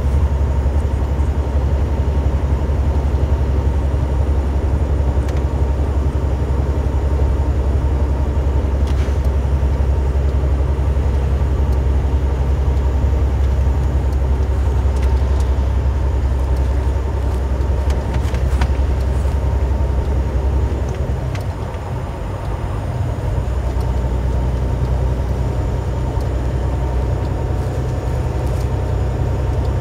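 Semi truck's engine and road noise heard from inside the cab: a steady low drone that eases off a little about two-thirds of the way through and then picks up again.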